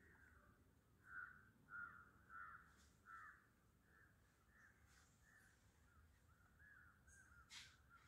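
A crow cawing: four caws in quick succession about a second in, followed by a run of softer calls.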